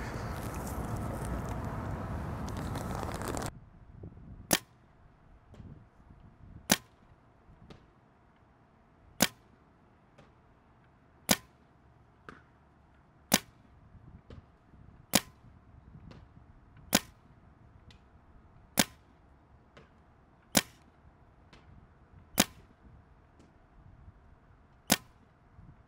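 Dye DAM paintball marker firing single shots at a steady pace, a sharp crack roughly every two seconds, about ten in all, starting about four seconds in. A steady rushing noise fills the first few seconds before the shooting begins.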